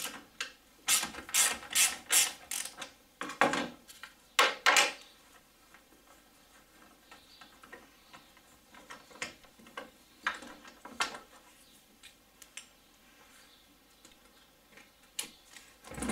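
Socket ratchet clicking as the car battery's terminal clamps are undone, in two quick runs of clicks over the first five seconds, then scattered single clicks and knocks.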